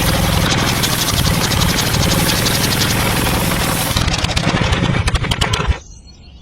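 Small motor of a miniature model tractor running steadily with a fast, even ticking, then cutting off sharply near the end, leaving a few faint clicks.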